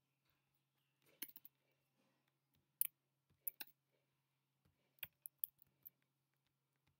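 Computer keyboard and mouse clicking: about a dozen sharp clicks in small groups, the loudest just before the three-second mark, over a faint steady low hum.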